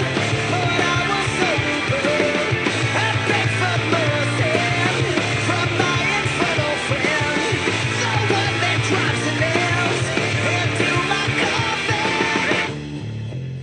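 Background rock music with a full band playing loudly. About a second before the end it drops suddenly to a quieter guitar and bass passage.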